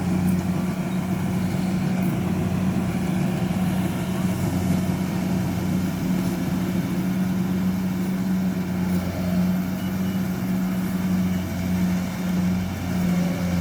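Kubota combine harvester's engine running steadily, an even drone with no changes in pitch.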